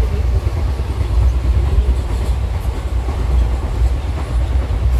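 Moving passenger train heard from inside the coach: a steady low rumble of the carriage running on the rails.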